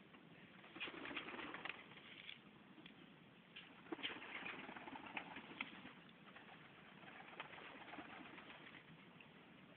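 Serbian highflyer pigeons cooing quietly, with scattered sharp clicks and taps among them.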